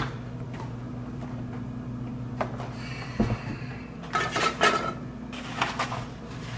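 Dishes, cups and utensils clattering on a kitchen counter: a few scattered clicks, a dull knock about three seconds in, then bursts of clinking about four seconds in and again near the end, over a steady low hum.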